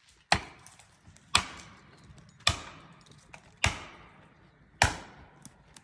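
Sledgehammer driving a felling wedge into a tree's back cut: five heavy ringing strikes, evenly paced about once a second, to tip the tree over.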